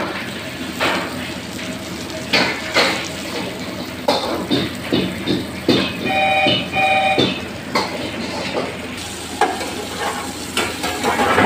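Masala-coated pomfret sizzling as it shallow-fries in mustard oil on a large flat tawa, with frequent short clatters and scrapes. Two short beeping tones come about six seconds in.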